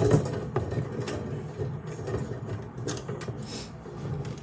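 Small screw being turned in with a hand screwdriver on a metal can rack: a knock at the start, then uneven scraping and rubbing of the driver and metal parts.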